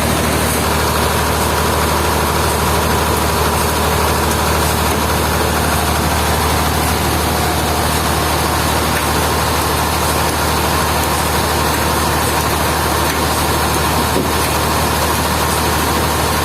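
Heavy engine running steadily at a constant speed, a low drone with a thin steady whine above it.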